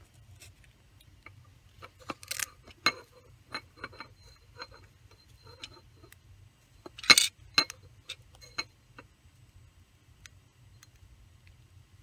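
A hobby knife cutting strips of double-sided foam mounting tape along a ruler, amid light clicks and taps of handling. Two brief scraping rasps stand out, about two seconds in and, louder, about seven seconds in.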